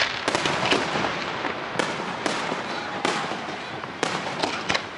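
Fireworks display: a quick run of sharp bangs and pops over a steady noisy haze.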